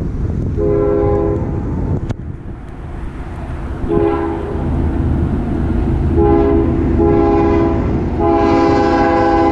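Air horn of an approaching CSX freight locomotive sounding four blasts for a grade crossing, the last one held longest. A steady low rumble runs under it.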